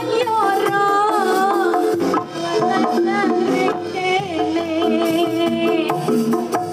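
Live jaranan ensemble music: a wavering, bending lead melody over drums and rattling percussion.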